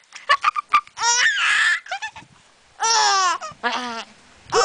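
Baby laughing: a quick run of short laughs, then drawn-out high-pitched squeals, one falling in pitch and the last rising.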